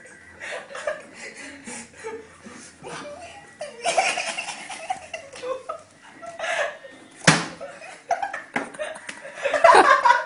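Several people laughing, with one sharp slap about seven seconds in, the loudest sound here.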